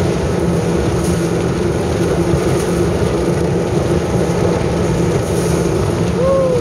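Outboard motor of a 21-foot flats catamaran running steadily at speed, over a constant rush of wind and water noise.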